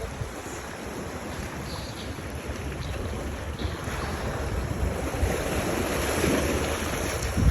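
Wind buffeting the microphone over a steady wash of water, growing a little louder in the second half.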